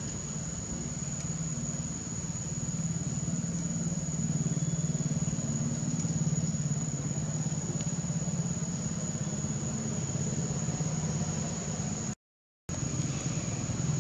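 Steady low mechanical hum like an engine idling, with a constant thin high-pitched whine over it; the sound cuts out completely for about half a second near the end.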